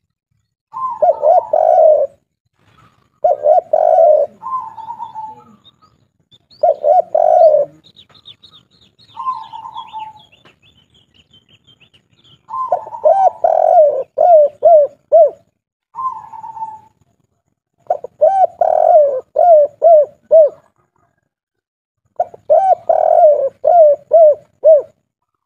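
Spotted dove (tekukur) cooing in the local 'kuk 3' style: repeated low coo phrases with pauses between them. The later phrases end in a quick run of four or five short coos. A faint high twittering from another small bird comes in for a few seconds near the middle.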